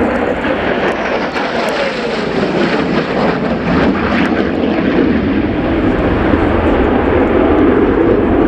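Lockheed Martin F-35B Lightning II's single Pratt & Whitney F135 turbofan jet engine, loud on a high-speed low pass. A tone slides down in pitch in the first few seconds, and the low rumble grows heavier toward the end.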